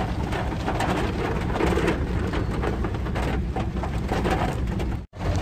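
Heavy rain falling on a moving car, heard from inside the cabin over a steady low road rumble. The sound cuts out for an instant near the end.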